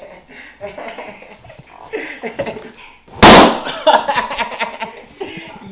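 A balloon bursting with one loud, sharp bang about three seconds in.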